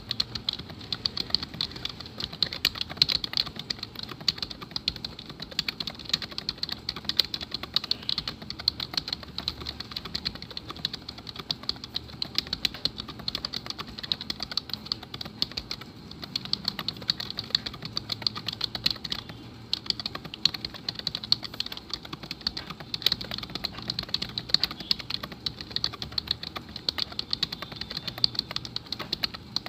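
Computer keyboard being touch-typed fast and without pause, a dense stream of key clicks at about 88 words a minute during an online typing test.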